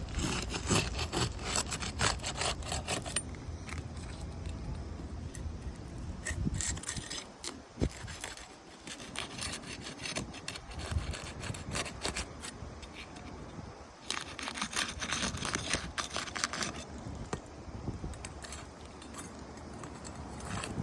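A tool scraping and rubbing under Tamko asphalt shingle tabs in spells of quick rasping strokes, breaking the sealed tabs loose so a damaged shingle can be pulled out.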